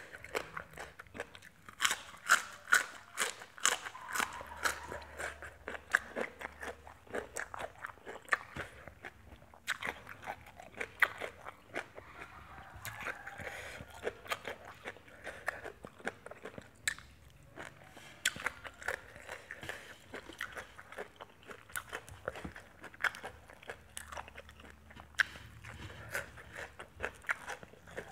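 A person chewing a mouthful of crunchy food close to the microphone: a papaya-salad meal eaten with raw leafy greens, giving runs of crisp crunches with brief pauses between bites.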